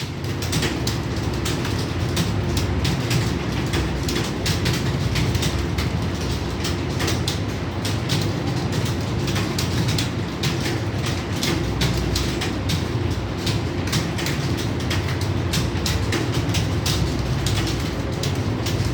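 Many computer keyboards clattering at once as a roomful of people type fast under time pressure: a dense, unbroken patter of keystrokes over a steady low hum.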